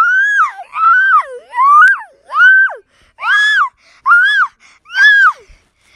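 A high-pitched voice-like cry repeated about eight times in a row, each call rising and then falling in pitch.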